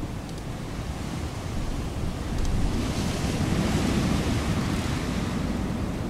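Wind blowing in a steady rushing hiss that builds into a stronger gust about halfway through, then eases slightly near the end.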